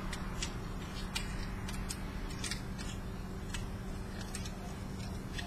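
Light, irregular clicks and ticks of a small plastic connector and its thin copper wires being handled and picked apart by hand, over a steady low hum.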